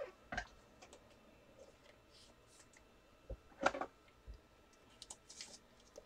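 A few faint, scattered clicks and light rustles of small objects being handled, the loudest about three and a half seconds in.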